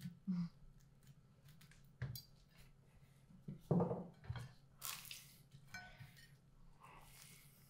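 Fork and knife clinking and scraping on a dinner plate in a series of short, scattered clicks, with a louder thump about four seconds in.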